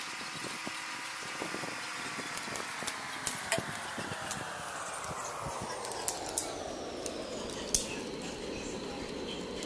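Scattered sharp clicks and snaps as a freshwater crayfish's shell is cut with scissors and pulled apart by hand, the loudest about a third of the way in and near the end. Under them runs an engine-like hum that falls slowly and steadily in pitch.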